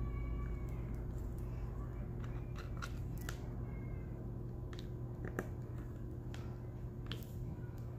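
Light, irregular clicks and taps of a diamond painting drill pen picking up resin drills from a plastic tray and pressing them onto the canvas, over a steady low hum.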